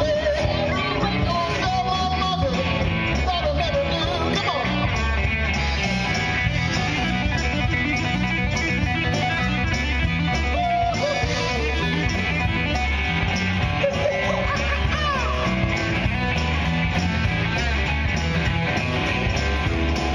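Live rock band playing an instrumental passage: electric guitars, bass guitar and a drum kit over a steady beat, with a lead line that bends its notes.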